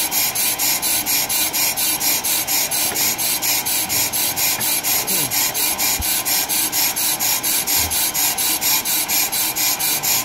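A Pro-Cut PFM 9.2 on-car brake lathe cutting a brake rotor: the cutting bits scrape the metal in a steady pulse about four times a second. The cut catches and misses, so it doesn't sound right, which the operators take as a sign that the rotor has a high and a low spot after an inconsistent compensation.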